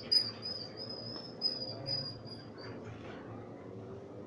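Small ball bell on a cat's collar jingling as the cat's head is stroked: a thin high ringing with a few sharp clinks, the loudest near the start and about a second and a half in, dying away after about three seconds.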